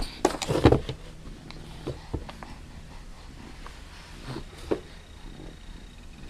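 A series of sharp knocks and taps, several close together in the first second, then a few scattered single knocks.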